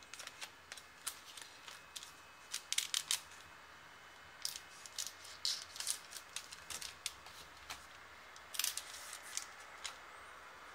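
Foil trading-card booster packs crinkling and crackling as they are handled and opened, in irregular clusters of sharp crackles.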